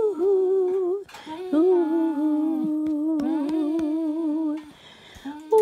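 A person humming or singing long held 'ooo' notes of a slow tune, in two phrases: a short one, a brief break about a second in, then a longer slightly wavering note that stops near the end.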